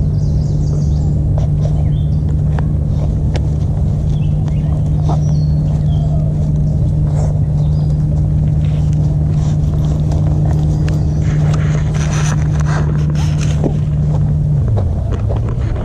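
Motorboat engine running with a steady drone, its pitch falling away near the end as it throttles down or passes. Light clicks and rustles of footsteps on the trail sound over it.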